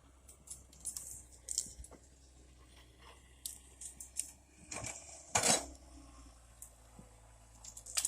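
Komatsu PC100 excavator at work digging a trench: a low steady engine hum under scattered metallic clinks and short scrapes. A louder rasping scrape comes about five and a half seconds in.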